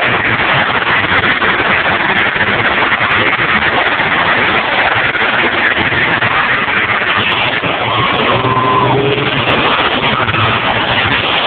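Demolition derby cars' engines running and revving together in a continuous loud din.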